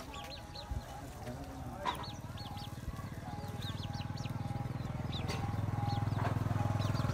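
Birds chirping in short, high, repeated peeps, while a low engine drone grows steadily louder over the second half.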